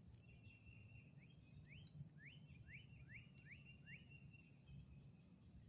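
Faint bird calls: a series of quick rising chirps, about two a second, over a thin steady high tone and a low background hum.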